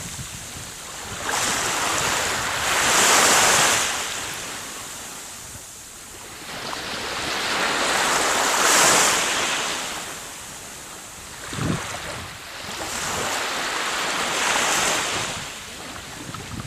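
Baltic Sea waves washing onto a sandy beach, the surf swelling and fading about every six seconds, with wind buffeting the microphone.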